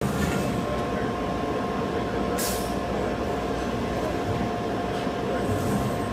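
HMT 3.0ECNC-MS all-electric multi-stack CNC tube bender running while its tube rotates in front of the cope-detection sensor, over steady hall noise with a constant two-note whine. A short burst of hiss about two and a half seconds in.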